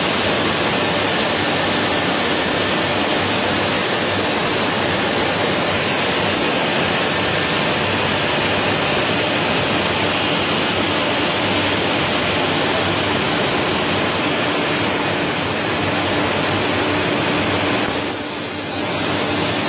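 Steady, loud rushing noise of machinery on a PVC pipe production line, with a faint steady hum under it; the noise dips briefly near the end.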